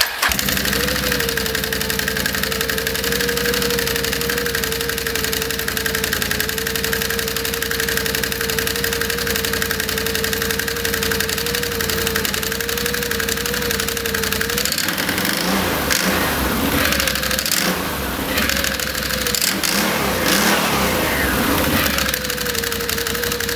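2012 Can-Am Outlander 500 XT's Rotax V-twin engine starting and running in neutral with the CVT cover off, the open primary and secondary clutches and drive belt spinning. The whine holds steady until about fifteen seconds in, then rises and falls in pitch as the engine is revved. The clutches, fitted with new Dalton springs, are spinning freely with nothing wobbling.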